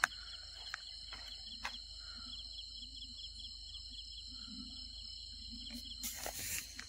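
Night insects, crickets among them, keep up a faint steady chorus of high shrill tones and rapid pulsing chirps. A few soft footfalls on the dirt path are heard, and a short rustle of brush comes about six seconds in.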